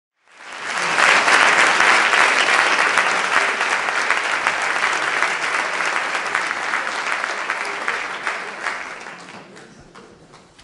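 Concert audience applauding: dense clapping that swells up within the first second and dies away over the last couple of seconds.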